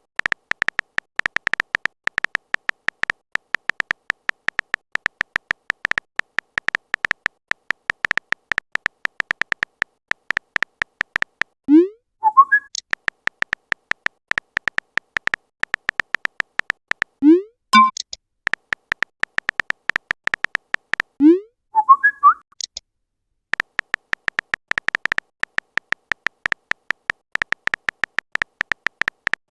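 Chat-app typing sound effect: a fast, even string of short high beeping clicks, one per typed character, interrupted about 12, 17 and 21 seconds in by short rising pops as messages are sent or arrive.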